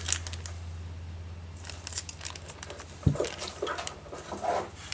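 Crinkling plastic and small clicks from an ink cartridge's soft ink pouches and casing being handled and worked open by hand, with a single sharp knock about three seconds in. A steady low hum runs underneath.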